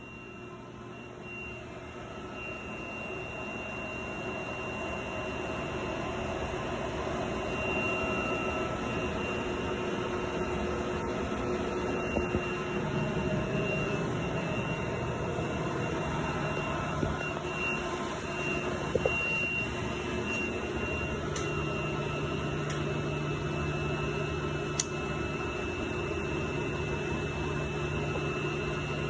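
10 HP Sullivan Palatek rotary screw air compressor running steadily, a low hum under a thin high whine. It grows louder over the first several seconds and then holds even.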